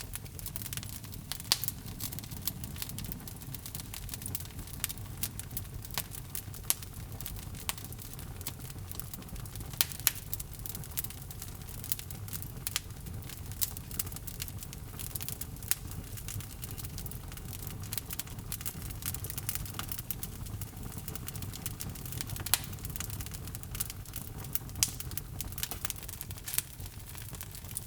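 Wood logs burning in a fireplace: a steady low rumble of the flames under irregular crackles and sharp pops, a few louder pops standing out.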